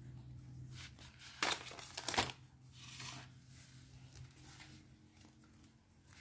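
Plastic food packaging crinkling in a few short rustles, the loudest about a second and a half and two seconds in.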